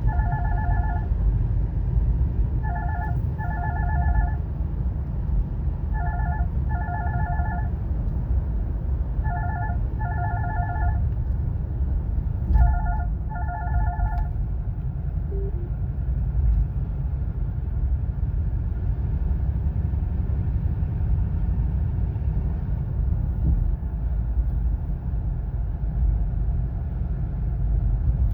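A telephone ringtone trilling in two-part rings about every three seconds, which stops about fourteen seconds in, over steady low road rumble inside a moving car's cabin.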